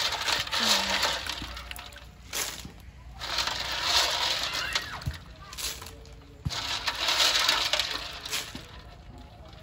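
Water splashing in a series of surges about a second long, with a few sharp clicks between them.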